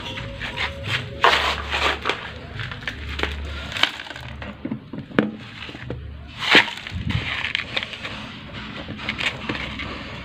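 Thin black plastic plant pot being handled: lifted, moved and set down, with a string of irregular knocks and rustles as the plastic is gripped and bumped.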